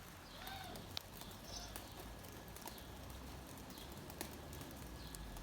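Light rain falling, a faint steady patter with scattered drips ticking irregularly.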